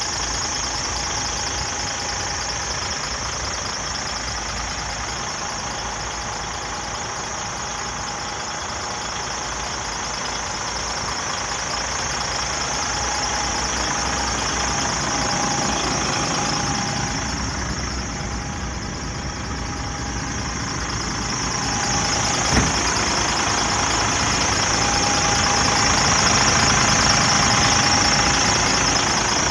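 DAF CF 85 truck's six-cylinder diesel engine idling steadily, growing somewhat louder in the second half, with one sharp click about 22 seconds in.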